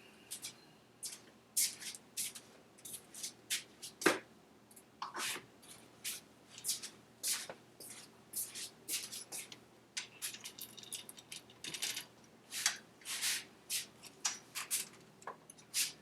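Hands handling engine parts on a bench: irregular light clicks, rustles and small taps, with one sharper knock about four seconds in.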